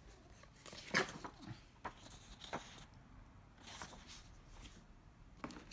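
Paper sheets and booklets being handled and lifted out of a cardboard box: a scatter of soft, short paper rustles and light taps.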